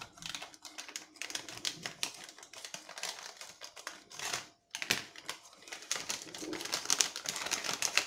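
Small scissors snipping through a plastic postal mailer: a quick run of sharp clicks and crisp plastic crinkling, with a short pause about four and a half seconds in. Near the end the cut bag rustles as it is pulled open.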